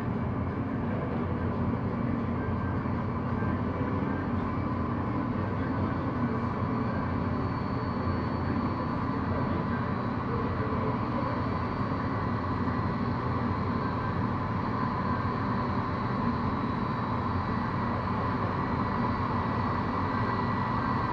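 Jet engines of a Boeing 757-200 running at idle as it taxis: a steady rush with a high whine in it.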